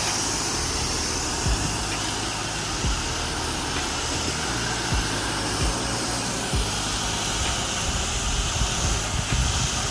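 Pressure washer running steadily: the drone of its motor under the hiss of the high-pressure water spray, with a few short low knocks.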